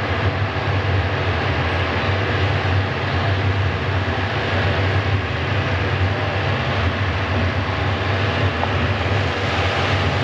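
Steady low rumbling drone under an even hiss, unchanging throughout.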